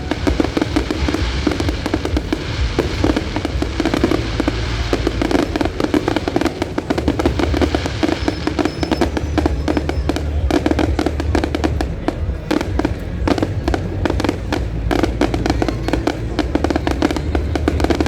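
Fireworks display going off without pause: many rapid, overlapping bangs and crackles, with music playing underneath.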